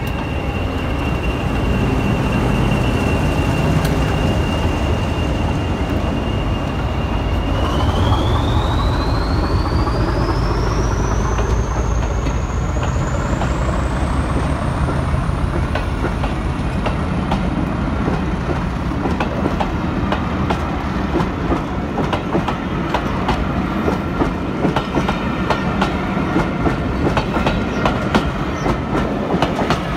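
Class 40 diesel locomotive's English Electric 16-cylinder engine running, with its high turbocharger whistle holding one pitch and then rising steadily after several seconds as the engine opens up. The coaches behind it then roll past with a steady clickety-clack of wheels over rail joints.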